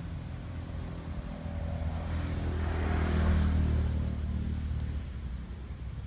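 A motor vehicle driving past, growing louder to a peak about three seconds in and then fading away.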